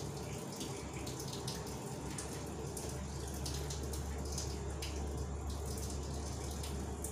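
A whiteboard being wiped clean by hand, a run of irregular rubbing strokes over a steady low hum.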